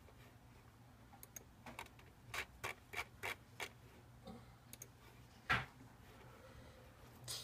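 Computer mouse clicking: a few light clicks, then a run of five about three a second, then one louder click a couple of seconds later, over a faint steady hum.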